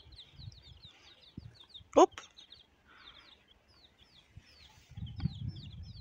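A flock of domestic chicks peeping continually: many short, high cheeps, each sliding down in pitch, overlapping one another.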